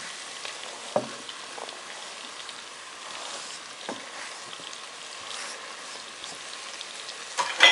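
Pork frying in a hot multicooker bowl sizzles steadily under freshly added carrot and onion. A few soft knocks come as chopped onion is scraped off a cutting board into the bowl, about one second and four seconds in.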